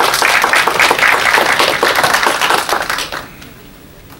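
Audience applauding, which dies away about three seconds in.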